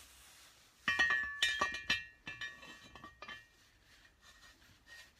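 BSA Fury cylinder head's exhaust camshaft clinking against the head as it is slid into its bearing bore: a cluster of sharp metallic clinks about a second in, then lighter clicks, with a high ringing tone that fades away over the next few seconds.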